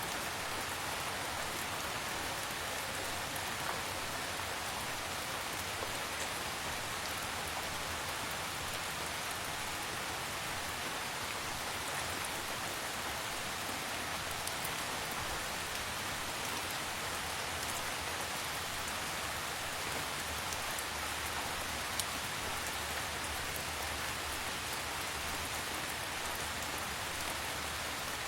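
Gentle, steady rain falling, an even hiss with a few sharper single drop ticks here and there.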